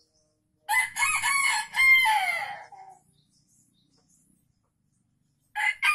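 Red junglefowl rooster crowing: one crow of about two seconds, then a second crow starting near the end.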